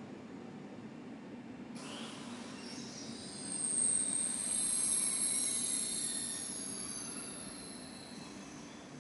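SBB passenger train rolling slowly along the platform over a steady low rumble. Its wheels squeal in several high tones that set in about two seconds in, are loudest around the middle, and fade away toward the end.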